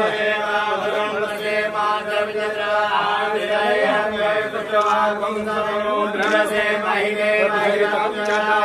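Temple priests chanting mantras: a continuous sing-song recitation of male voices over steadily held notes, as a puja blessing.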